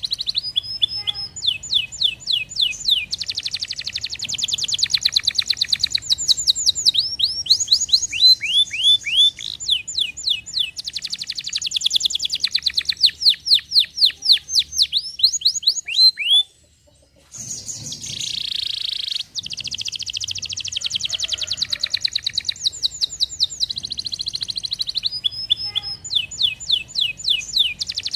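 Domestic canary singing: fast trills of rapidly repeated notes and rolls of falling sweeping notes, with a short break about two-thirds of the way through before the song carries on.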